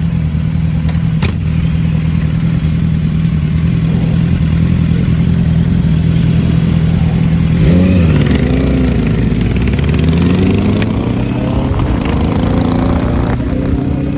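Royal Enfield Shotgun 650's parallel-twin engine running at a steady speed while riding. About eight seconds in the revs briefly swell and drop, then climb steadily as the bike accelerates.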